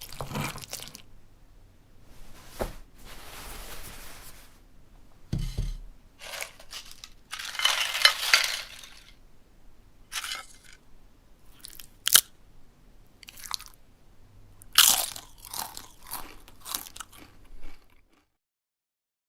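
Irregular crunching of food, with a dense stretch about eight seconds in, a single sharp crack about twelve seconds in, and more crunches after that, cutting off suddenly near the end.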